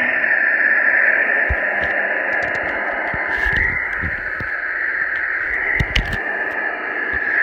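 Steady rushing noise of a moving passenger train, with a few soft knocks along the way.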